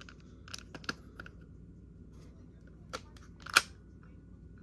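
Plastic magnetic building tiles clicking and clacking together as they are handled and snapped into place: several short, sharp clicks, the loudest about three and a half seconds in.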